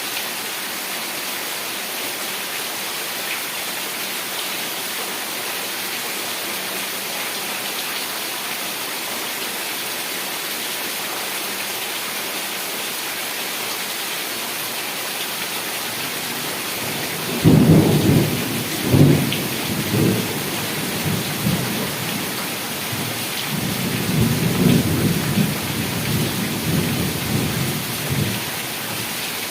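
Heavy rain falling steadily, then a thunder rumble that breaks in sharply a little past the middle and rolls on in several peaks, with a second rolling stretch of thunder near the end.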